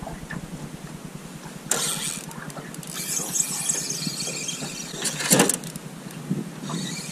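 Spinning reel whirring and squealing while a hooked fish is played on a bent rod, starting about two seconds in, with a short loud knock about five seconds in.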